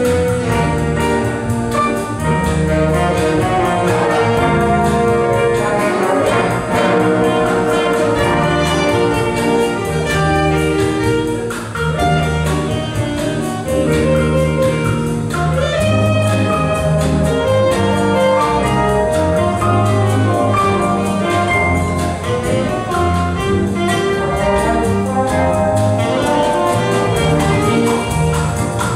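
An ensemble playing a piece led by brass, with trumpets and trombones holding melody notes over a steady bass.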